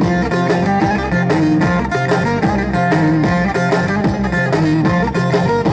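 Instrumental break of Turkish horon folk dance music played loud over loudspeakers: a bağlama with a fiddle-like melody over a steady beat.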